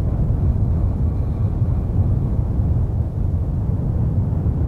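A steady low rumble with no separate events, its energy mostly deep.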